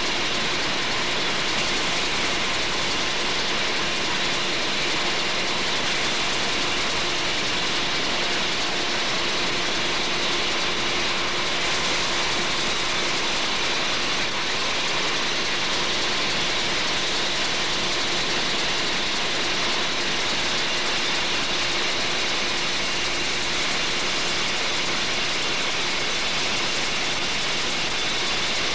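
MAN B&W L35MC Mk6 two-stroke low-speed marine diesel engine running steadily, heard close up: a dense, even mechanical din with a faint steady hum in it.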